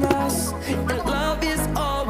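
Background pop song with singing over a steady beat.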